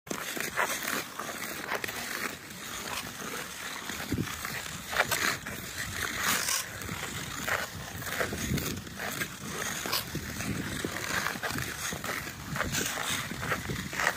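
Ice skate blades scraping and carving across rink ice in irregular strokes, about one or two a second.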